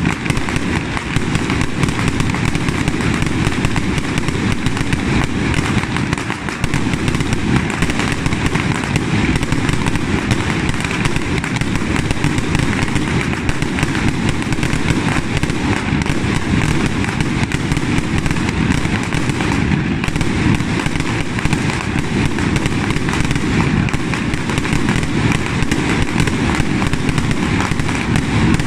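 Ground-launched fireworks and firecrackers going off in a dense, unbroken barrage of crackling and popping.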